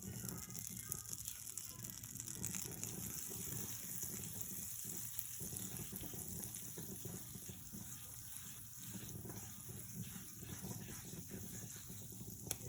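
Butter sizzling in a hot frying pan, a steady hiss.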